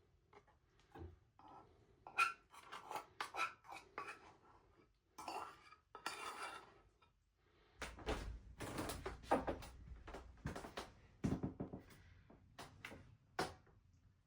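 Cutlery clinking and scraping against a small pan of baked beans: a run of irregular knocks and scrapes, busiest just after the middle.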